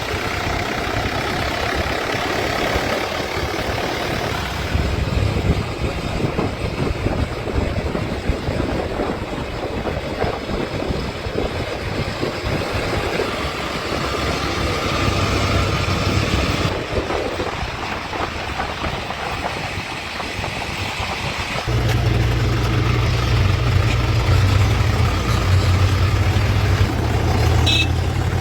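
Diesel engines of a backhoe loader and farm tractors running at a work site, rising and falling with load. The sound changes abruptly twice, after which a strong, steady low engine hum dominates.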